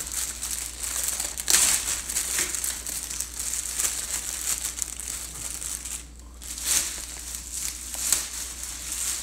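Clear plastic rod sleeve crinkling and rustling as a fishing rod is worked out of it. There are a few sharper crackles and a brief lull about six seconds in.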